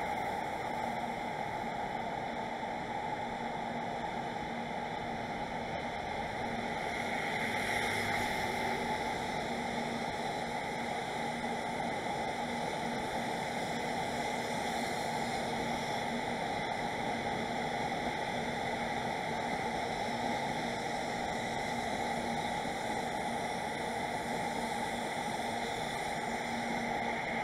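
Steady static hiss with a faint low hum, the constant noise floor of a live-camera microphone; any sound of the departing train is not clearly heard above it.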